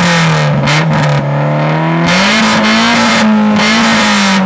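Toyota Celica engine and loud exhaust held at high revs, the note steady, then rising a little about two seconds in.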